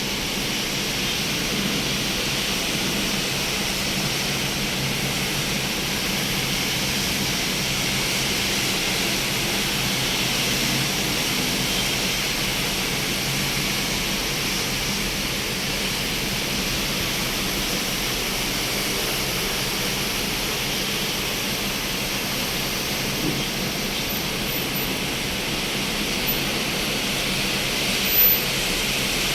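Heavy rain falling in a steady, even hiss, with a few faint brief ticks near the end.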